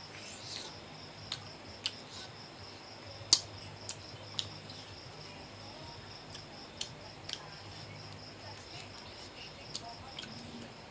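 Steady chirring of crickets, with scattered sharp smacks and clicks from someone chewing chicken off the bone; the loudest click comes a little over three seconds in.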